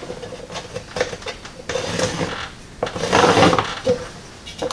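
Short scraping and rubbing strokes with light clatter: a marker being drawn on the wall around the stainless steel exhaust pipe while the pipe is held and shifted against the wall. The loudest stroke comes about three seconds in, with another at the very end.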